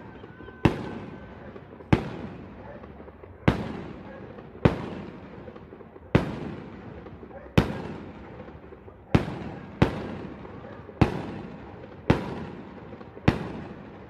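Aerial fireworks bursting in a steady series: about eleven sharp bangs, one every second or so, each fading away in a rumbling tail.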